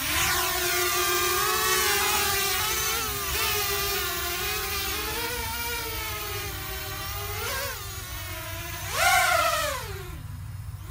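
Small quadcopter drone's electric motors and propellers whining, spooling up at lift-off and wavering in pitch as the throttle changes in flight. About nine seconds in it surges to its loudest, the pitch rising and then falling as it climbs hard.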